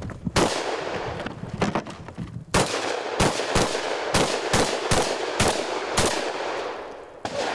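Mossberg 930 JM semi-automatic 12-gauge shotgun fired in rapid succession: a single shot about half a second in, then after a short lull a fast string of about a dozen shots, roughly three a second.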